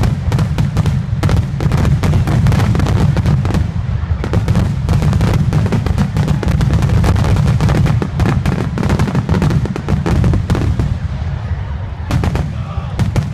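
Aerial fireworks going off in a rapid, continuous barrage. Crowded sharp crackling bangs ride over deep booms, with a short lull about twelve seconds in.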